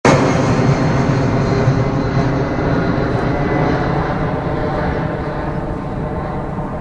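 Airbus A330 twin jet engines running at take-off power during the take-off roll: a loud steady rumble with a faint high whine, slowly fading.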